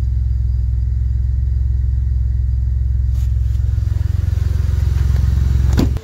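Ford F-150 2.7L twin-turbo EcoBoost V6 fitted with a Bullet Performance muffler, idling steadily as heard from inside the cab, a deep, low drone. A short click sounds near the end.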